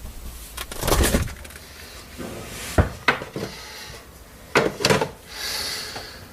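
A string of knocks, clicks and clatters of things being handled and moved about, about seven in all, with a short hiss near the end.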